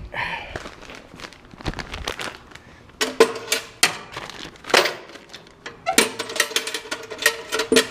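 Irregular clicks and knocks of objects being handled, some with a short metallic ring, in two busier bursts about three and six seconds in.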